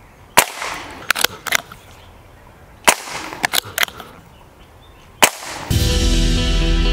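Under-lever air rifle firing 4.5 mm pellets: three sharp shots about two and a half seconds apart, with smaller clicks and knocks between them. Background music comes in near the end.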